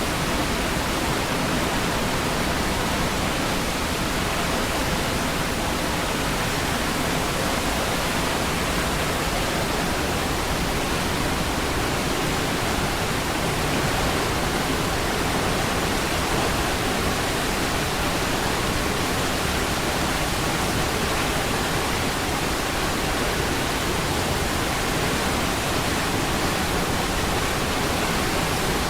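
Niagara Falls' steady rush of falling water, a dense, even noise that stays the same throughout.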